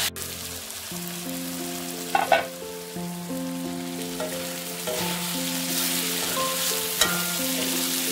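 Matchstick-cut potatoes sizzling as they are stir-fried in an oiled steel wok, with a metal spatula knocking against the pan about two seconds in and again near the end. Background music with held notes plays under it.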